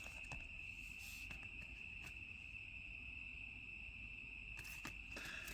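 A faint, steady high-pitched whine holding one pitch, with a few faint ticks and a short rustle near the end.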